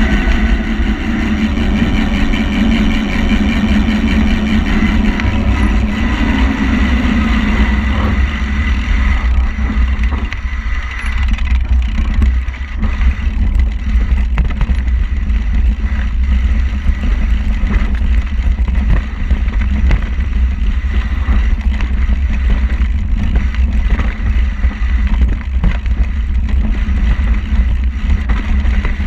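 Engine of an off-road vehicle running, its pitch falling slowly over the first several seconds before it settles into a rougher, lower rumble with heavy low-end noise underneath.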